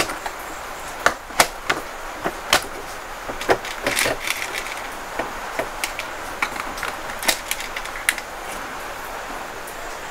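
Irregular clicks and light knocks from hands working the plastic body and controls of a Singer FM 2250 electric sewing machine, over a steady faint hiss; the machine is not stitching.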